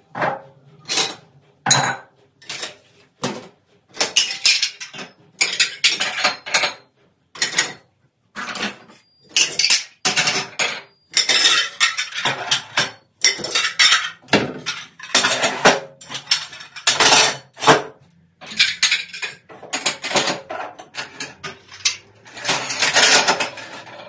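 Clean dishes being unloaded from a dishwasher and put away: plates and glasses clinking and clattering as they are lifted from the racks and stacked in the cupboard, in quick irregular knocks, with a longer stretch of clatter near the end.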